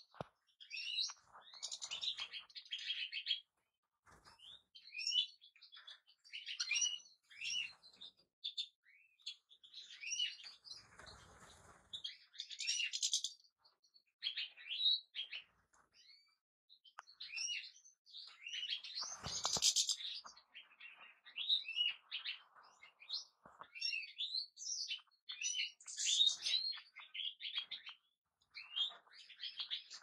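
European goldfinch song: phrases of rapid twittering chirps and trills, broken by short pauses. Twice a brief rustle sounds under the song.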